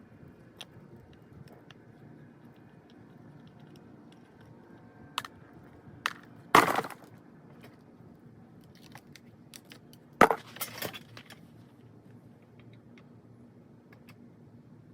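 Clatter of small hard objects being handled: scattered light clicks, with two loud short rattling knocks about six and a half and ten seconds in.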